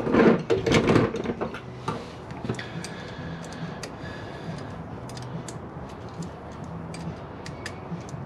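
A burst of tool-handling clatter in the first second, then scattered light metallic clicks and ticks of a wrench working a battery terminal bolt as the cable connection is snugged down.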